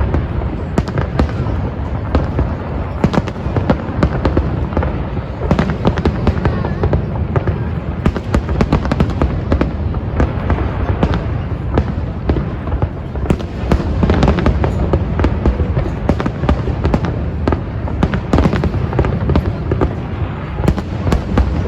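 Fireworks going off in a dense, unbroken barrage of bangs and crackles with deep booms underneath.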